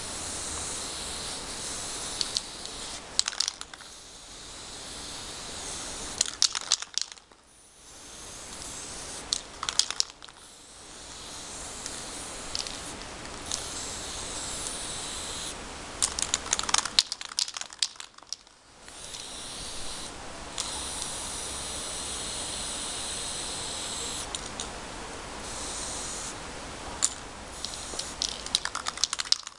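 Aerosol spray-paint can hissing onto asphalt in several long sprays with short pauses between them, and brief runs of sharp clicking in the pauses.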